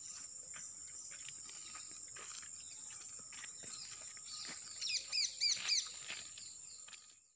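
Countryside ambience: a steady high-pitched insect buzz, with a bird giving a quick run of arching chirps about five seconds in.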